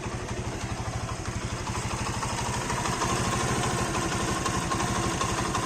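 Alpha moped's single-cylinder four-stroke engine idling steadily, just started from cold. It runs cleanly without extraneous knocking, the way a healthy Alpha engine should sound.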